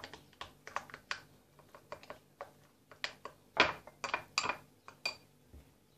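Plastic spoons tapping and scraping against small glass bowls while stirring a thickening soap-and-salt slime mixture: irregular light clicks, with a few louder taps a little past halfway.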